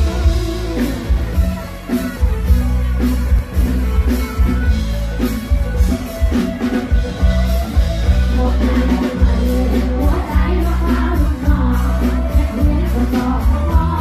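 Live band playing a Thai luk thung song, loud, with heavy bass and a steady drum-kit beat; a woman's voice comes in singing into a microphone about halfway through.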